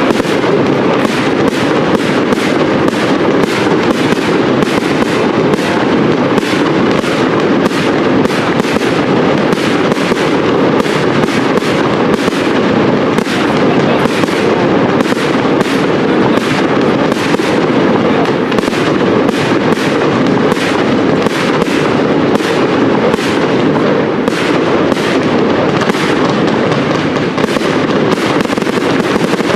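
Large professional fireworks display: a dense, unbroken barrage of shell bursts, several bangs a second.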